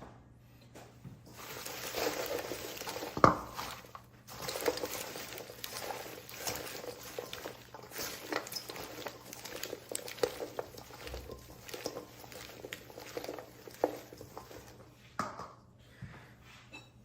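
Mixed lettuce leaves being tossed in ranch dressing in a bowl by a gloved hand: a steady wet rustling and crinkling of leaves, with scattered light knocks against the bowl and a short pause about four seconds in.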